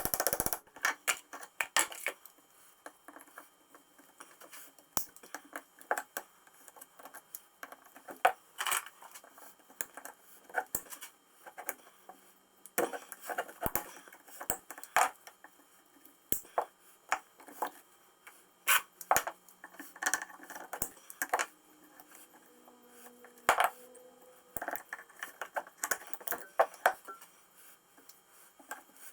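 Irregular metallic clinks, taps and clicks of tools and small steel parts being handled as an old tram gear shifter is taken apart.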